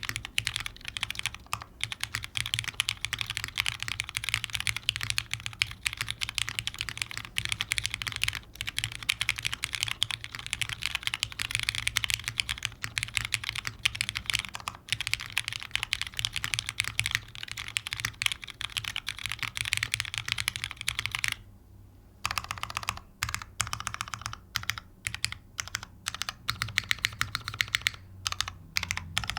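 Typing on a Daal custom mechanical keyboard with lubed Cherry MX Black linear switches and GMK Foundation keycaps, plateless and O-ring mounted: a fast, dense stream of keystrokes. About three-quarters of the way through it stops for under a second, then resumes as sparser, separate keystrokes.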